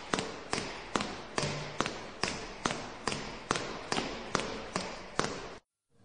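A steady rhythm of sharp taps, about two and a half a second, each trailing off in a short hiss. It breaks off briefly near the end.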